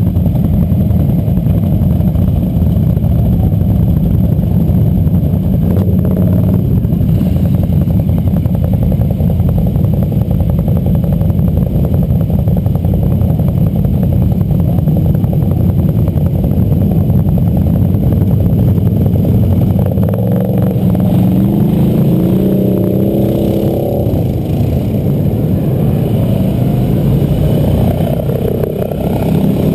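Several quad-bike (ATV) engines running as the machines roll slowly past in a line, a steady low rumble with a few short rises and falls in pitch from throttle blips about two-thirds of the way in.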